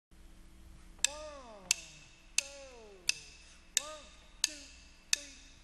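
Drumsticks clicked together in a steady count-in, seven sharp clicks about two-thirds of a second apart, with faint falling pitched sounds after some of the clicks.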